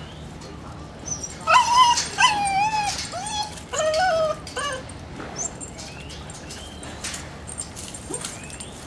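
A dog whining: a run of high, wavering cries starting about a second and a half in and lasting about three seconds.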